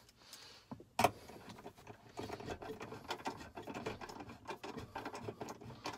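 Small irregular ticks and rustles of a bolt being turned by hand into a threaded hole in a metal console safe, with one sharp click about a second in.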